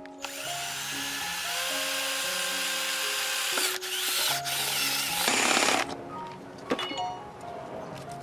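A small high-speed electric motor whirring twice: the first run rises in pitch as it spins up, holds steady and stops after about three seconds; a second, louder run follows and cuts off suddenly. Background music plays under it.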